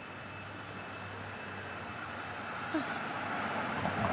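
City street traffic noise, a steady hum that grows louder toward the end.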